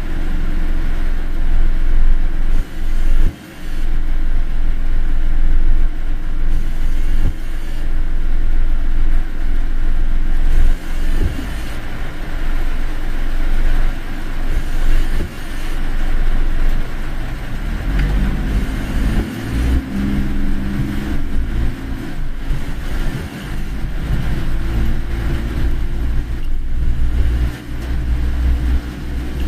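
Car travelling along a road: a steady, loud low rumble of engine and tyres, with the engine hum growing stronger about two-thirds of the way through.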